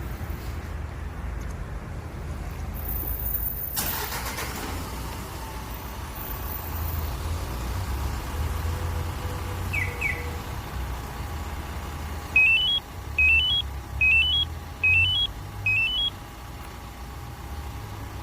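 Hyundai All New Mighty truck's diesel engine idling steadily after a remote start. A brief burst of hiss comes about four seconds in, two short high beeps follow around ten seconds, and near the end there are five short, rising electronic chirps from the alarm or remote-start system.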